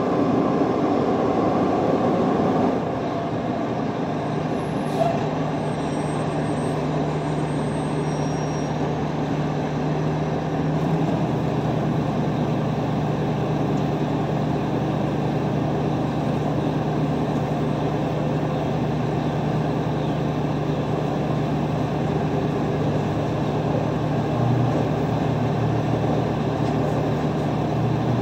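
Garbage truck engine running steadily out of sight, a low hum that drops slightly in pitch about eleven seconds in, a little louder at the start.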